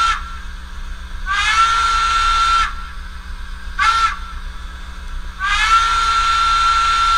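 Model steam locomotive's digital sound decoder playing a single-chime steam whistle through the model's small speaker. The tail of one long blast, then a long blast, a short toot about four seconds in, and another long blast: the long-long-short-long crossing signal. Each blast slides up to pitch as it opens.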